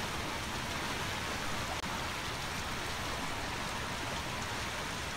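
Creek in flood running high and fast: a steady rush of water.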